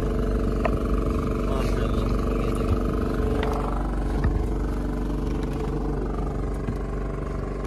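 Fishing boat's engine running steadily, a low even drone, with a few short sharp knocks on board.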